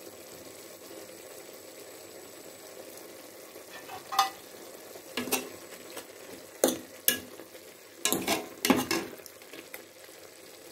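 Pot of chicken breast and vegetables cooking in its own juices, with a steady sizzling bubble. From about four seconds in comes a series of sharp clicks and knocks, several close together near the middle.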